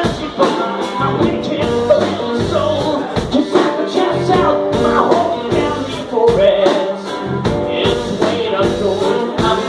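Live rock band playing: electric guitars, keyboard and drum kit, with a steady driving beat.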